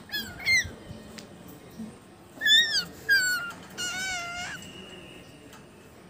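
Lutino cockatiel whistling: two quick short notes near the start, then louder notes that swoop up and down around the middle, ending on a longer held note a little before the end.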